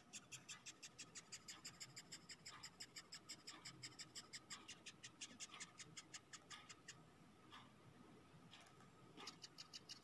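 Dung beetle stridulating while held between fingers: a faint, rapid train of short scratchy chirps, about six a second. The chirps stop about seven seconds in and start again a couple of seconds later. This is the beetle's distress 'crying' when it is touched.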